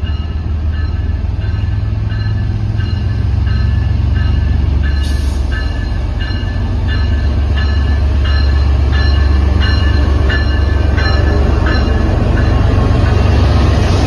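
MBTA MPI HSP46 diesel locomotive pulling into the station, its bell ringing about twice a second over the deep, steady drone of its diesel engine. The rushing noise of the train passing close swells near the end.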